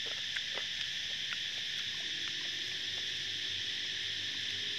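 Steady, high-pitched insect chorus droning without a break. A faint low hum joins about two seconds in.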